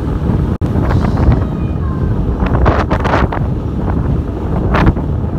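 Strong wind buffeting the phone's microphone on an open ship deck: a loud, continuous rumble with irregular gusts, and a momentary dropout about half a second in.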